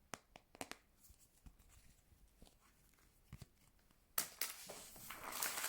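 Packaging being handled: scattered small clicks and taps, then, about four seconds in, a longer stretch of tearing and crinkling of packaging that grows louder toward the end.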